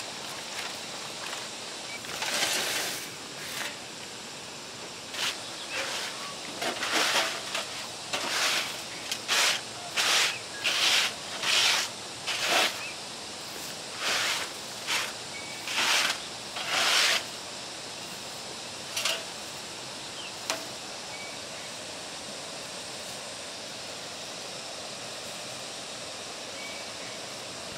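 A run of short rustling swishes, about a dozen at irregular intervals, which stop a little past two-thirds of the way through. After that only a steady outdoor hiss remains.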